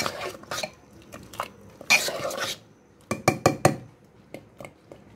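Metal spoon stirring thick dal in a pressure cooker, scraping and clinking against the pot: a scrape about two seconds in, a quick run of clinks a second later, then lighter scattered taps.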